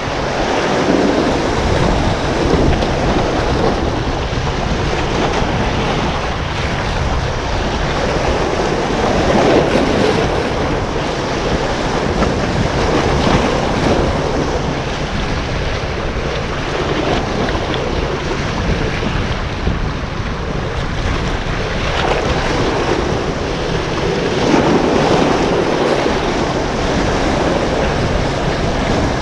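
Sea waves breaking and washing over breakwater rocks, surging louder every so often, with wind buffeting the microphone.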